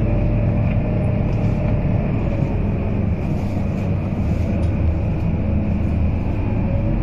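Scania K230UB city bus's five-cylinder diesel engine and drivetrain running steadily while the bus is under way, heard from inside the passenger cabin as a low rumble with a faint steady whine above it.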